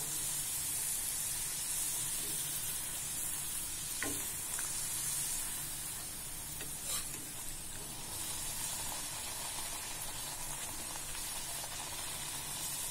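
Poori deep-frying in hot oil in an iron kadai: steady sizzling, with a couple of light clicks about four and seven seconds in.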